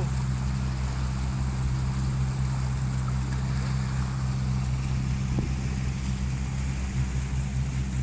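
A boat's engine running steadily underway, a low even drone heard from on board.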